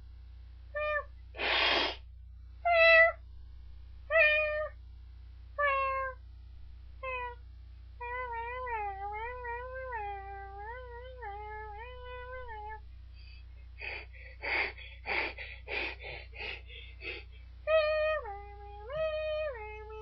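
Domestic cat meowing repeatedly: a string of short meows, then a long wavering meow from about eight seconds in. Around fourteen seconds in comes a run of short, rough cries, and the meows start again near the end.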